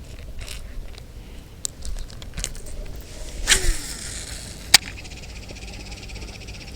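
Handling noises from stowing a just-caught fish: scattered clicks and scrapes, a short rustle about three and a half seconds in and one sharp click near five seconds, the loudest sound. Behind them a steady high chorus of insects sets in.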